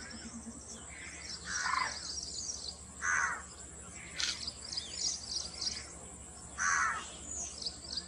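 Birds calling: three loud, short calls that drop in pitch, about a second and a half in, about three seconds in and around seven seconds, over steady high chirping of small birds.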